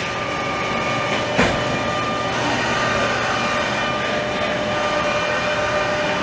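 Haas ST-20 CNC lathe, powered up and idle, giving a steady mechanical hum with a few steady whining tones in it. A single sharp click comes about a second and a half in.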